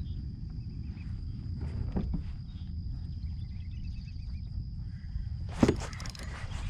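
Outdoor ambience: a steady low rumbling noise with a thin, steady high whine above it. There are scattered small ticks, and one sharp knock about five and a half seconds in.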